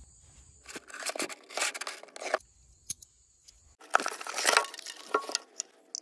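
Cardboard box being slit and torn open with a folding utility knife: two spells of irregular rasping and tearing, with a sharp click between them.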